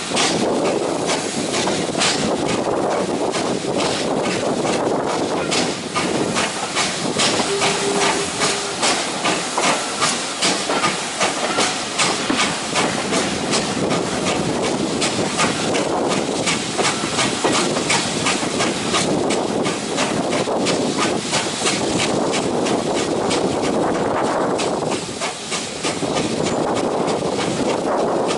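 Steam-hauled heritage train running at speed, heard from a carriage window: a steady rumble and rush of running noise, with wheels clicking over the rail joints and pointwork throughout.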